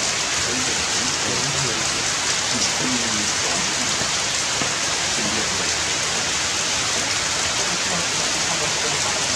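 Steady rain falling on forest leaves and branches, a constant even hiss.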